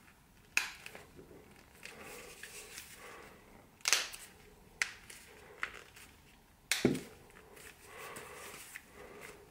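Sharp clicks, about five spaced irregularly, as the replacement ear pad's plastic clips snap into the holes of a Focal Bathys ear cup under finger pressure, with soft rubbing of the pad between them. The clicking is the sign that a clip has seated properly.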